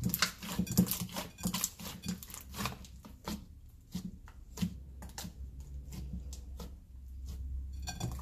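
Fluffy slime made with toothpaste being squeezed and kneaded by hand, giving wet squelches and many sharp clicks, thick and loud in the first few seconds and more spaced out after.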